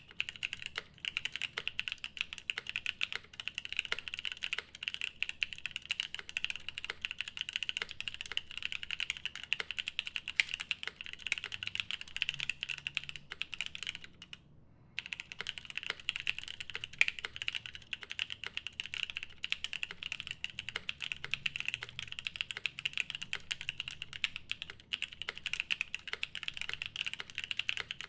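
Fast continuous typing on an Unnamed75 mechanical keyboard with lubed Paco switches on a polycarbonate plate and GMK keycaps: a dense stream of keystrokes, broken by a short pause about halfway through.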